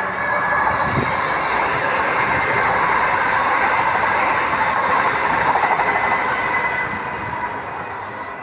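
High-speed electric train running past on an elevated viaduct: a steady rushing of wheels on rail and air that builds over the first second and fades toward the end.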